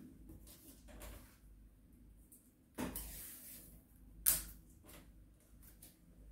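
Plastic carrier bag and insulation tape being handled as the bag is taped tight over a toilet rim: scattered faint rustles and clicks, a short rustle about three seconds in and a sharper snap a little after four seconds.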